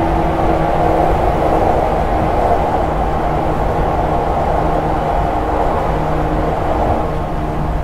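JNR 475 series EMU running through the Kurikara Tunnel, heard from the vestibule of motor car KuMoHa 475-42. The MT54 DC traction motors hum and the 19:80 gears whine as steady tones over constant wheel and rail rumble.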